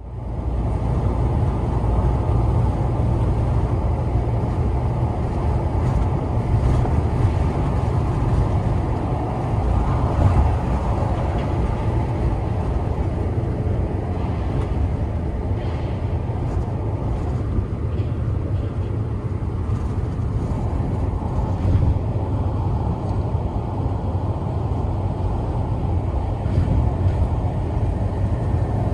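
Cabin noise of a Honda N-WGN kei car cruising on an expressway, recorded inside the car: a steady low rumble of road and tyre noise with the engine barely audible.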